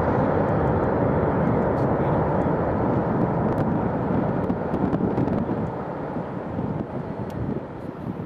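Boeing 747-400 freighter's jet engines, a steady deep roar as the jumbo rolls out on the runway after touchdown, fading away from about six seconds in.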